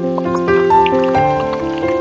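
Background music of held notes in chords that change every half second or so.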